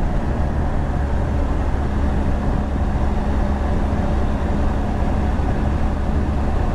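Motorcycle riding at speed: steady wind rush over the microphone with the drone of a BMW R1200GS Rallye's boxer-twin engine underneath.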